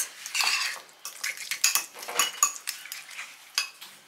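A spoon or fork clinking and scraping against a dish in quick irregular strokes, as avocado and squeezed lime are mixed into a simple guacamole.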